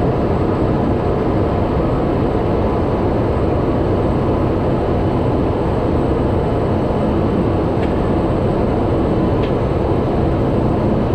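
Steady cockpit drone of a Cessna 208B Grand Caravan's single PT6A turboprop engine and propeller on final approach: a dense, even noise with a couple of faint clicks near the end.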